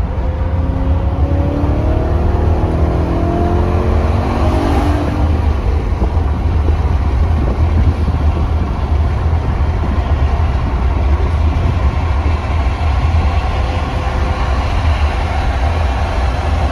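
BMW E90 M3's 4.0-litre V8 pulling under acceleration, its note rising for the first five seconds or so, then settling into a steady drone with tyre and road rumble, heard from inside the cabin.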